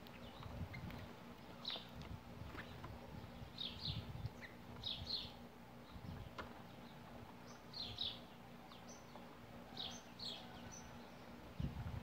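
House sparrows chirping: many short high chirps, often in quick pairs, scattered throughout, over a faint low rumble.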